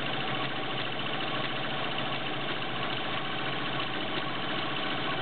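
Kenmore Model 95 sewing machine running steadily under its 1.2-amp motor, stitching a stretch duck pattern from a pattern cam.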